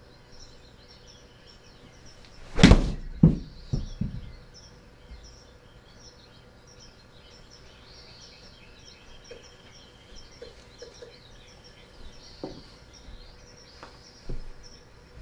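A wedge strikes a Kirkland golf ball with one sharp click about two and a half seconds in, followed within about a second and a half by two quieter knocks as the ball hits the simulator's impact screen and drops. Faint high chirping runs underneath.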